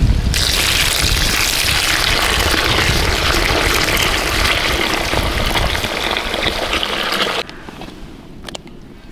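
Running water, a loud steady rush that cuts off suddenly about seven and a half seconds in, leaving a few faint clicks.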